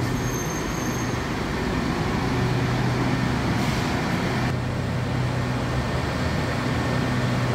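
SRT Red Line electric commuter train running slowly along the platform and coming to a stop, with a steady low hum throughout.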